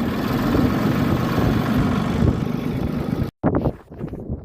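Tractor engine running steadily while ploughing across a slope. It cuts off abruptly a little over three seconds in, giving way to much quieter outdoor sound.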